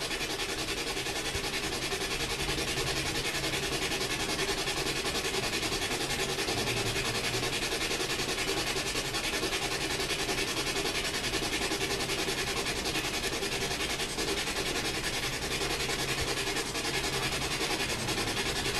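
Steady static hiss from a ghost-hunting spirit box scanning radio frequencies, even and unbroken.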